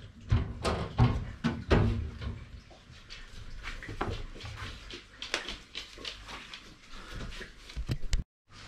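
Irregular clicks and knocks of a new metal tool chest and its packaging being handled, busiest in the first two seconds, with a brief dropout near the end.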